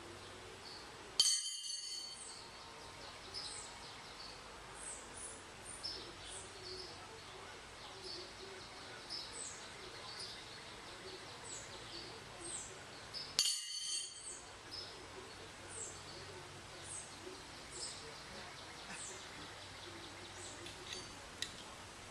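Songbirds chirping in a backyard: many short high chirps over a low hiss of background noise. Twice, about a second in and again about twelve seconds later, comes a brief, bright ringing clink with several high tones.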